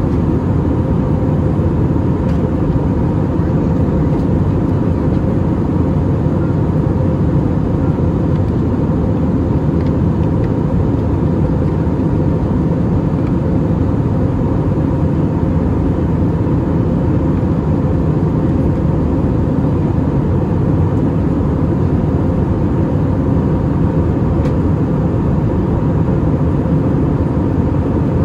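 Steady engine and airflow noise inside the cabin of an Airbus A320neo, heaviest at the low end, with a faint steady tone running through it.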